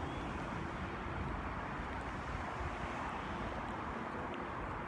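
Steady outdoor background noise, an even rushing hum like distant traffic or wind, holding level throughout.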